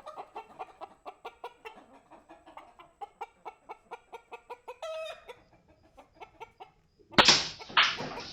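Chickens clucking over and over in short, rapid calls, about three or four a second. Near the end there are two loud, sharp noisy bursts about half a second apart.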